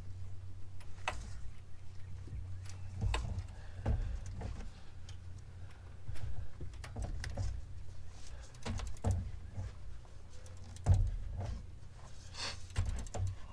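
Torque wrench and socket extension tightening a spark plug into a Honda 3.5 L V6: irregular ratchet clicks and small metal knocks, the sharpest about eleven seconds in, over a steady low hum.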